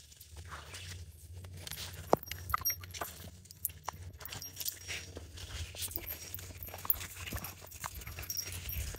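Footsteps and rustling through leafy undergrowth as dogs brush past close by, with scattered small clicks and a few sharper ticks.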